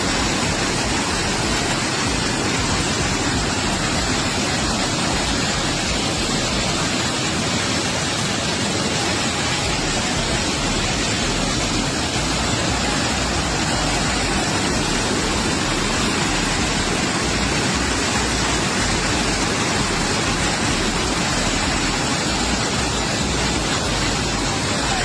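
Kakolat waterfall in heavy flood flow: water falling and crashing in a loud, steady, unbroken rush of noise.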